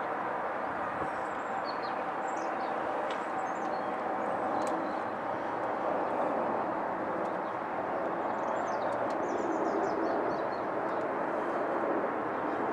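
An Airbus A380-861's four Engine Alliance GP7200 turbofans passing low overhead on approach: a steady jet rush. Small birds chirp briefly twice, once about two seconds in and again near the end.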